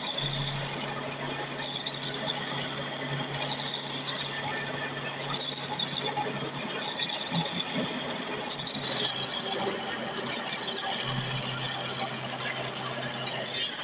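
Electric drill running and boring holes through a semi-truck clutch disc's friction lining: a steady motor hum under gritty cutting noise. The hum drops out for a few seconds midway and returns, and a brief sharp noise comes near the end.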